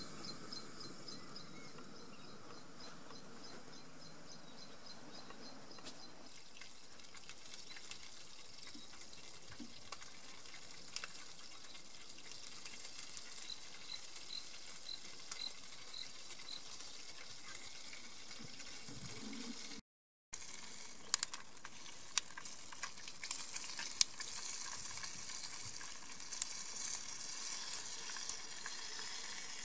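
Cheese wors sausage frying in a pan on a portable gas camping stove: a steady hiss, then sizzling with frequent sharp crackles and spits in the second half. A brief run of high, evenly spaced pips comes about halfway through.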